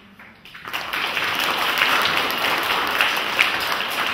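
Audience applauding, starting suddenly under a second in and holding steady.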